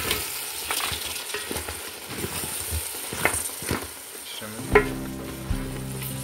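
Wooden spoon stirring a sizzling beef stew in a metal pot, scraping and knocking against the pot's sides with repeated short strokes; one sharper knock about three-quarters of the way through.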